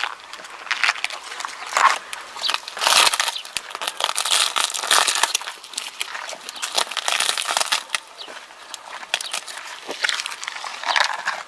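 Camel chewing cactus, a dense, irregular crunching and crackling that goes on without a break.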